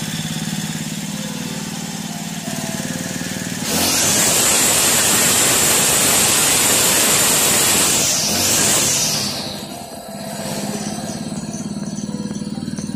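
Brush cutter engine idling, then revved hard when the throttle is squeezed about four seconds in, held at high speed for about four seconds, and released so it drops back to a steady idle. Its carburetor screw has just been loosened to stop the engine racing at idle.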